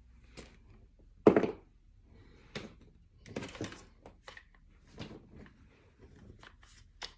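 Parts of a disassembled AR-15 rifle being handled and set down: a string of knocks and clatters, the loudest a sharp knock about a second in.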